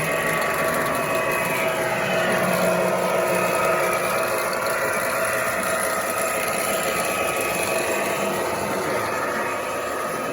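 Toy electric trains running on tinplate track: a steady motor whir with the rolling clatter of wheels on the rails.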